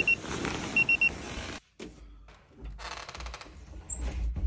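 Digital alarm clock beeping in quick groups of three high beeps, twice in the first second or so. It is followed by quieter handling noises and a low rumble as a bedroom door is opened.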